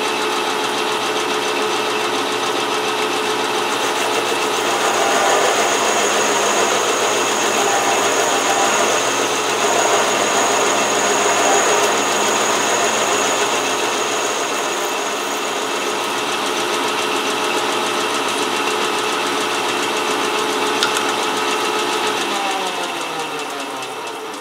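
Small metal lathe running steadily while a parting blade is fed by hand into the spinning stock to cut it off, with a thin high tone from the cut through the middle stretch. Near the end the motor is switched off and the lathe winds down, the pitch sliding lower.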